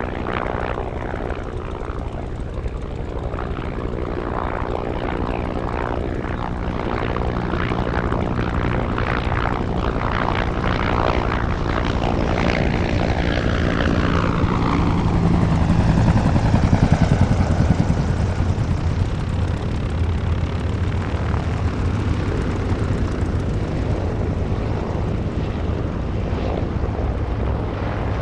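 Bell AH-1 Cobra attack helicopter's rotor and turbine running as it flies past. It grows louder towards a peak a little past halfway, with a whine that falls in pitch as it passes.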